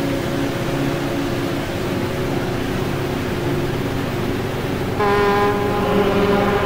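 Droning music: a steady low drone of several held tones, joined about five seconds in by a louder, held higher note.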